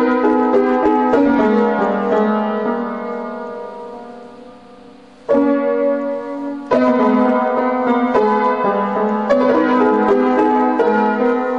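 Background piano music: chords struck and left to ring, fading slowly, then a fresh chord about five seconds in and denser playing after that.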